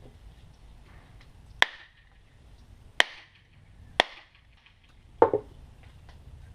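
Four sharp strikes about a second apart as a hatchet head is driven onto its wooden handle. The last is a doubled, duller knock.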